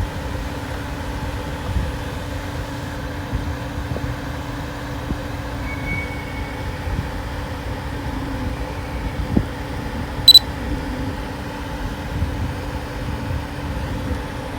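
Steady low rumble with a constant hum underneath, and one short, sharp electronic beep about ten seconds in.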